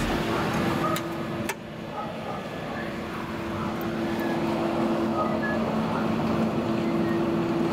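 Hydraulic elevator running, its pump unit giving a steady hum as the car travels in the shaft. There is a sharp click about a second and a half in.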